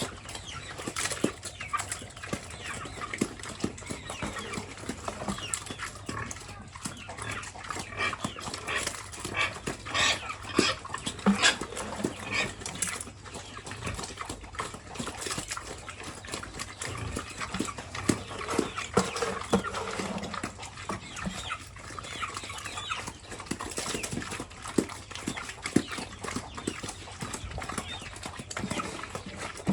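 Pigs eating vegetables and rice: many quick chewing and smacking clicks, with grunts and squeals mixed in.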